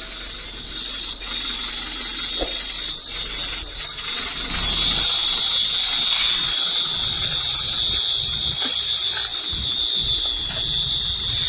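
A steady high-pitched alarm tone sounding without a break, louder from about four and a half seconds in, over a low rumbling background noise.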